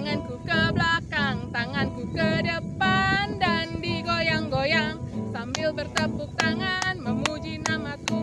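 A woman singing a children's action song in Indonesian to acoustic guitar accompaniment. About two-thirds of the way through, steady hand claps join in time with the song, about two or three a second.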